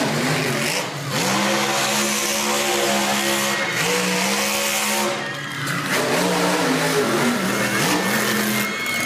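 Monster truck engine revving hard again and again, its pitch climbing and falling every couple of seconds over a steady roar.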